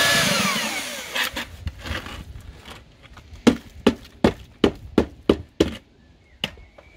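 Electric paddle mixer's motor winding down, its whine falling in pitch as it stops. Then the mortar-caked mixing paddle is knocked against the galvanised metal bin, about seven sharp knocks in quick succession with a last one a moment later, shaking off the lime mortar.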